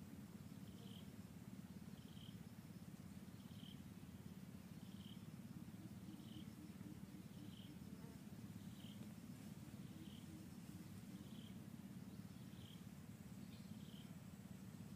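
Near silence: a faint steady low rumble, with a soft high chirp repeating evenly about every second and a quarter.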